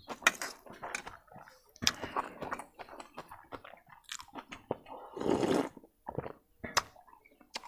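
Close-up eating sounds: chewing noodles with small wet clicks and smacks, then a half-second slurp of soup from a bowl about five seconds in, the loudest sound here.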